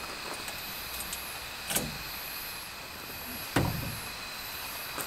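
Two dull, heavy clunks about two seconds apart, the second one louder, like a door or lid being shut. Behind them runs a steady high-pitched hum.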